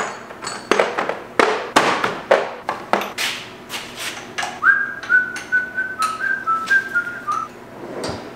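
Repeated knocks and clatter of hand tools and metal parts being moved about while rummaging for a tool. About halfway through, a man whistles a short tune of a few notes.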